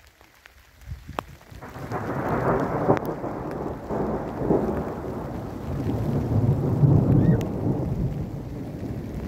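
Rolling thunder: a deep rumble that builds up about two seconds in and rolls on in swells to the end.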